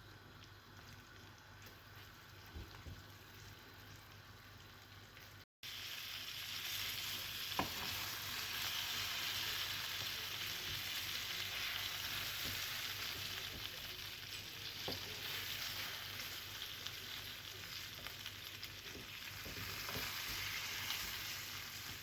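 Flour-coated stuffed eggplants frying in oil in a skillet, a steady sizzle. It is quieter for the first few seconds, then louder after a cut, with a few light clicks.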